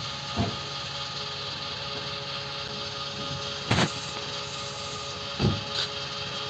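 Petrol station fuel dispenser pumping fuel through the nozzle into a car's tank: a steady hum with faint tones in it. Three short low thumps come through it, about half a second, about four seconds and about five and a half seconds in.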